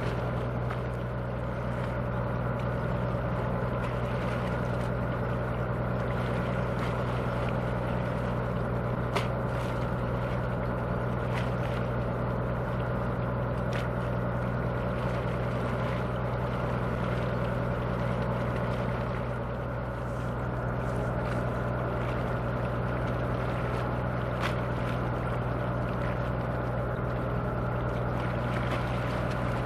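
Car ferry's diesel machinery running steadily while moored at the berth: a constant low hum with a few faint ticks.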